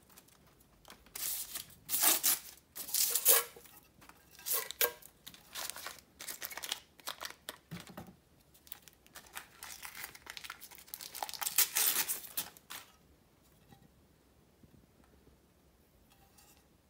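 Brown kraft-paper packing wrap being peeled and torn off a handlebar, in a string of irregular crinkling and tearing bursts that stop a few seconds before the end.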